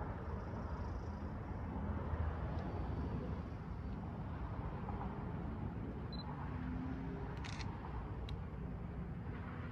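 Low, steady rumble of a distant approaching train, with a few faint clicks in the second half.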